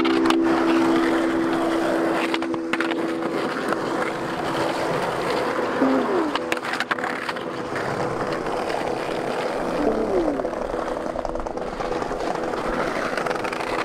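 Skateboard wheels rolling over rough pavement, with a few sharp clacks of the board on the ground.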